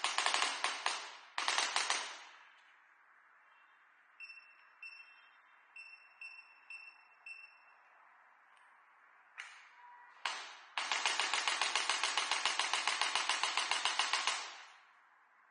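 Electric chiropractic adjusting gun firing sharp mechanical clicks: a few quick strikes at first, then a run of about seven short electronic beeps, two single clicks, and near the end a rapid even train of clicks, roughly eight a second, for about three and a half seconds.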